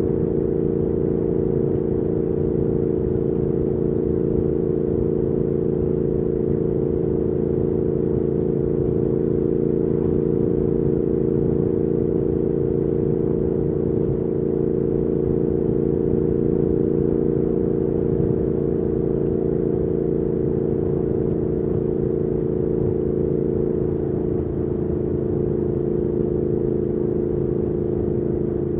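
2019 Triumph Speed Twin 1200's parallel-twin engine through a Weslake Shorty Pro exhaust, running at a steady cruise. It eases off slightly near the end, with the engine note dropping a little.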